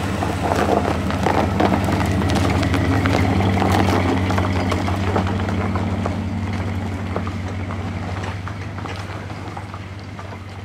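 Ford pickup truck's engine running as it pulls away and drives off, a steady low hum with crackle from the tyres on packed snow, slowly fading with distance.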